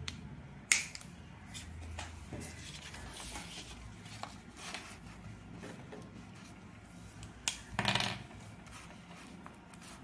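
Felt-tip markers and a paper worksheet being handled: a sharp click about a second in, a few light ticks, and a louder brushing scrape near the end.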